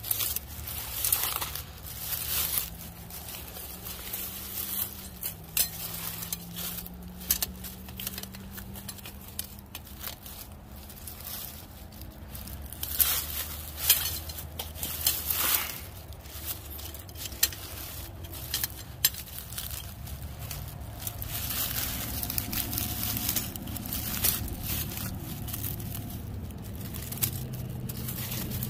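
Rustling and crackling of brush and debris with scattered sharp metallic clinks and rattles, as a Duke 330 body-grip trap and its chain are handled and untangled.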